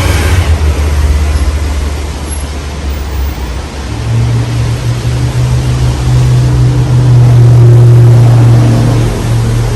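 Modern Fan Company Cirrus ceiling fan with a GE K55-type motor running, its moving air buffeting the microphone with a steady, loud low rumble and hiss. About four seconds in the low hum rises in pitch and grows louder.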